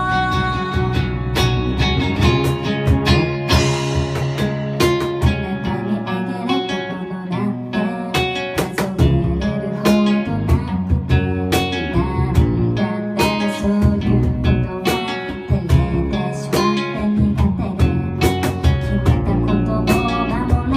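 Live acoustic band music: a nylon-string acoustic guitar strumming chords over bass guitar, with steady cajon hits keeping the beat and a woman singing at times.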